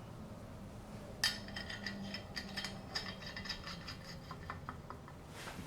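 Faint clicking and clinking of small steel hardware, starting about a second in: nuts being turned onto bolts by hand.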